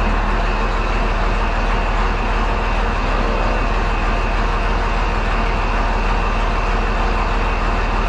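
Allis-Chalmers 7045 tractor's six-cylinder diesel engine idling, a steady low drone that holds even throughout.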